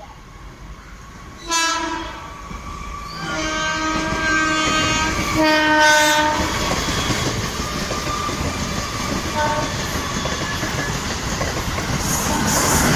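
Train horn sounding: a short blast about a second and a half in, then a longer blast of about three seconds. A train then runs along the track with a steady rumble and clatter that grows louder near the end.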